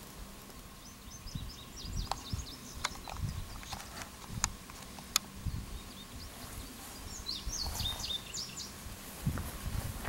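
Small birds chirping in quick runs of short high notes, once in the first couple of seconds and again about three-quarters through, over a low uneven rumble on the microphone. A few sharp clicks come in the middle, and a faint steady tone runs underneath.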